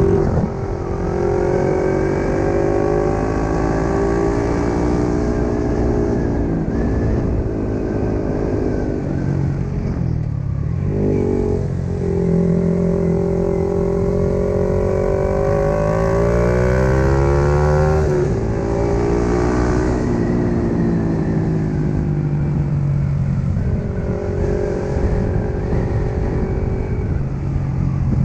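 Yamaha MT-15 motorcycle's single-cylinder engine heard on board while riding, its revs rising and falling with the throttle. The note drops sharply and climbs again about ten seconds in, and cuts down suddenly after a long climb near the eighteen-second mark.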